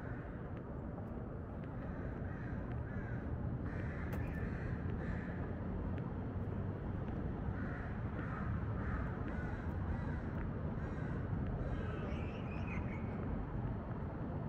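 Crows cawing repeatedly in short groups, clustered about four seconds in and again from about eight to ten seconds, over a steady low background rumble. A higher-pitched bird call comes near the end.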